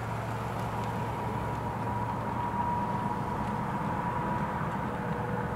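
Steady low mechanical hum and rumble with a faint, thin high whine that swells in the middle and fades near the end.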